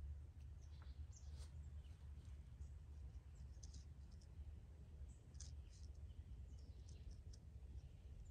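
Near silence: a low steady hum with faint, scattered short ticks.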